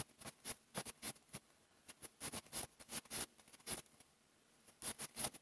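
Crochet hook and yarn being worked through stitches: faint, irregular soft scratches and rustles, several a second, with a short lull a little before the end.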